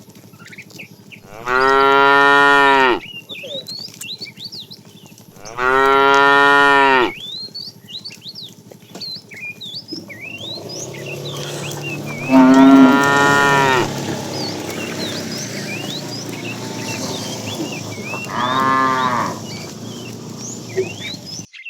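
Cattle mooing: four long, drawn-out moos, two in the first seven seconds, a third and loudest about twelve seconds in, and a shorter one near the end. Faint high chirps sound between the calls.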